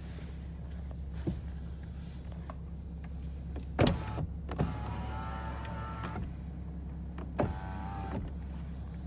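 Inside a BMW car with a steady low engine hum, a small electric motor whines twice, each time just after a knock: once for about two seconds, then again for under a second near the end. There are a few light clicks as well.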